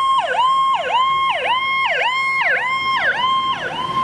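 Fire truck's electronic siren in a fast yelp, its pitch dropping and climbing back about twice a second.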